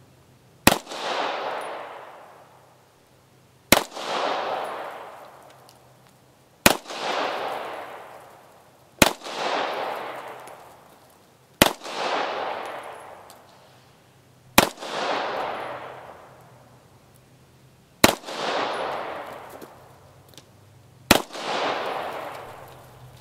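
Walther P1 9mm semi-automatic pistol fired eight times in slow single shots, about two to three and a half seconds apart. Each sharp report is followed by a long echo dying away.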